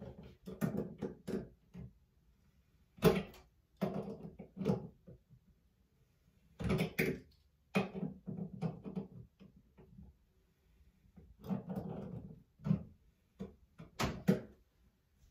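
Chrome shower-head fitting clicking and rattling against the metal shower pipe as it is twisted onto the threads, in about five bursts of rapid clicks with short pauses between.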